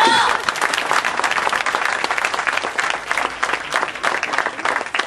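Applause from a crowd: many people clapping, breaking out as children's singing stops at the start.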